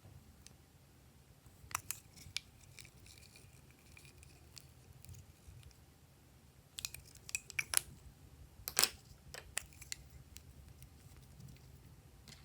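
Glossy slime being worked by hand, giving sharp clicks and pops in two clusters: a few around two seconds in, and a denser run from about seven to ten seconds in.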